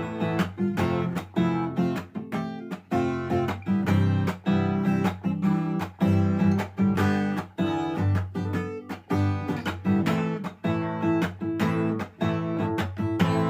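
Strummed acoustic guitar playing chords in a steady rhythm, an instrumental outro with no voice.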